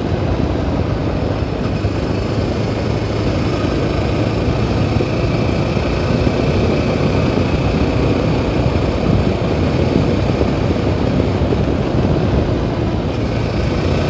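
Yezdi Adventure motorcycle's 334 cc single-cylinder engine running steadily at cruising speed, mixed with steady wind and road noise from riding.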